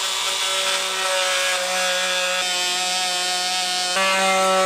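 Oscillating multi-tool running with a steady buzzing whine as it cuts through the plastic case of a lithium iron phosphate battery. It gets a little louder about four seconds in.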